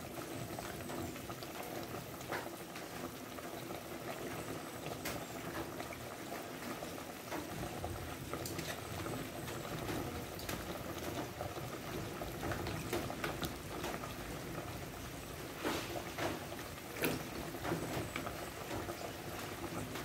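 A pot of pork broth boiling hard on a stove, a steady bubbling, with a few faint knocks and clicks as vegetables are dropped in.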